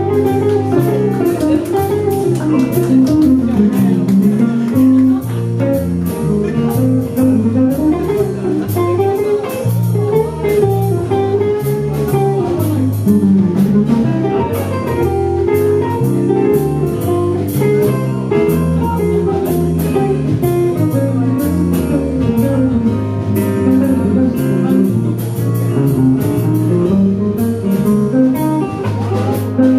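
Live small jazz combo playing: electric guitar takes a flowing melodic line over a walking bass and drums keeping time on the cymbals.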